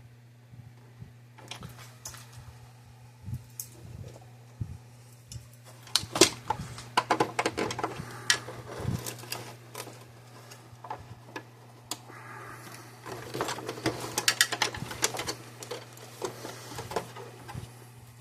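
Irregular clicks, taps and rattles of small metal parts and stainless steel strapping being handled and fitted by hand. The clatter is densest about six to nine seconds in and again around thirteen to seventeen seconds. A steady low hum runs underneath.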